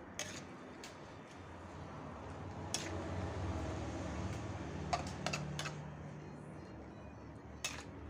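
Metal ladle stirring vegetables in a steel wok, clinking and scraping against the pan several times, with three clinks close together about five seconds in, over a steady low hum.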